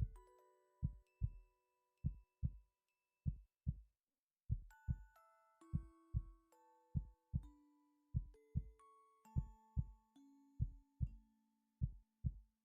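Human heartbeat, a steady lub-dub about fifty times a minute, each pair of low thumps close together. Soft chime-like background music plays with it.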